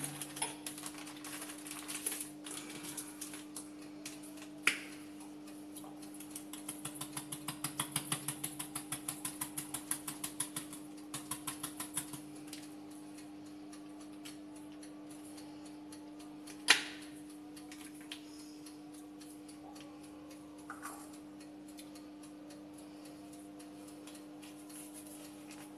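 A spice shaker shaken over a small bowl gives a run of quick rattling taps, about four or five a second for several seconds. Then comes a single sharp knock on the tiled counter, the loudest sound, over a steady low hum.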